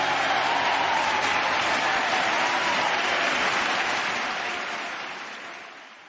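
Crowd applause, dense steady clapping that fades out over the last couple of seconds.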